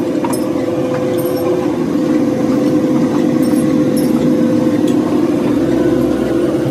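Foundry sand-mixing machine running with a steady, loud hum, while a steel shovel scrapes into the moulding sand and clinks a few times.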